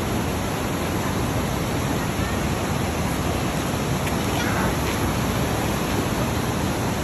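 Waterfall and river rapids rushing steadily over rock ledges.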